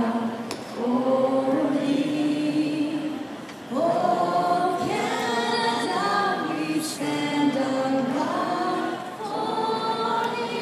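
A choir singing, many voices holding notes together in long phrases of chords, with a short break a few seconds in.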